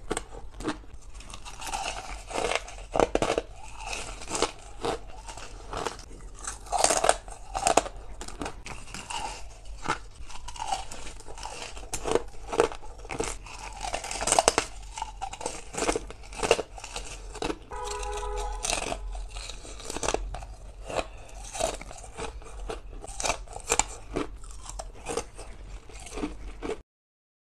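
Crushed ice being bitten and chewed close up, a long run of sharp, uneven crunches. The sound cuts off abruptly just before the end.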